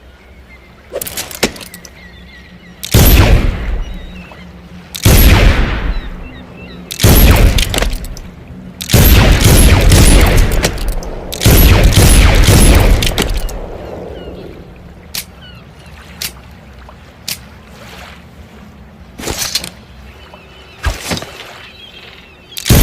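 Pistol gunshots: a series of loud single shots about two seconds apart, each followed by a long echoing tail, with a quick string of shots in the middle, then fainter sharp clicks and pops near the end.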